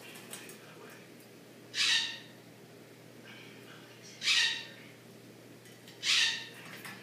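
An African grey parrot bathing in a water dish: three short bursts of splashing and wing flapping, about two seconds apart.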